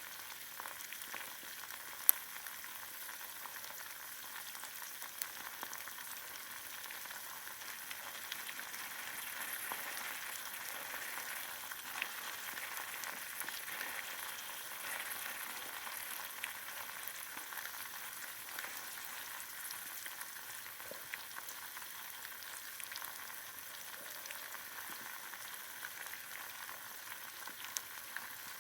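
Eggs frying in a pan: a steady sizzle full of small crackles and pops, with one sharp click about two seconds in.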